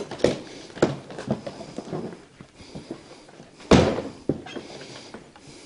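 Footsteps crunching and knocking over debris and broken boards scattered across the floor, with one louder thump about two-thirds of the way in.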